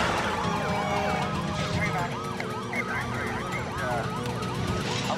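Police car siren in a fast yelp, rising and falling about four times a second, over the low steady running of a car engine.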